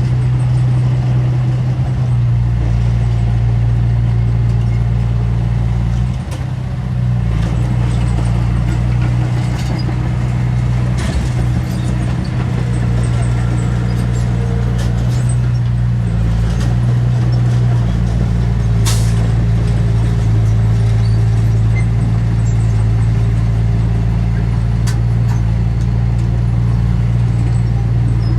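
Heavy diesel engine of earthmoving machinery running steadily under load at a low pitch, with a few sharp metallic clanks; the engine dips briefly about six seconds in.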